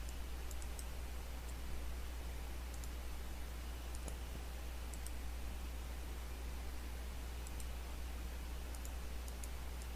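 Faint, scattered clicks of a computer mouse over a steady low hum of the recording.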